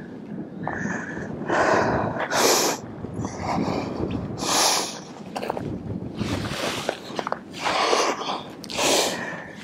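About six breathy rushes of air close to the microphone, each under a second long and a second or so apart, over a low steady background rumble.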